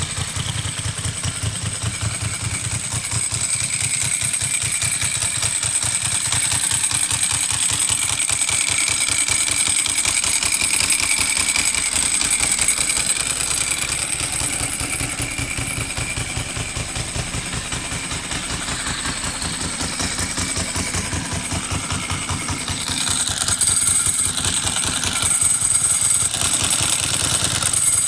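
Ducati motorcycle's air-cooled V-twin engine with a dry clutch, idling steadily with a fast even pulse, rising a little twice near the end.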